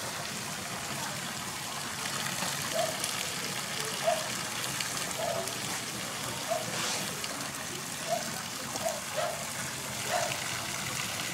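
Water pouring steadily from a pipe spout and splashing below, a constant gushing noise, with a few short, faint pitched notes over it.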